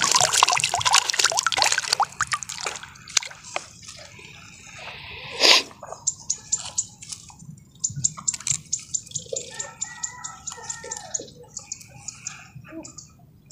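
Lake water splashing and dripping from a mesh keep net of caught fish. The splashing is dense for the first couple of seconds, with one loud splash about five seconds in, then scattered lighter drips.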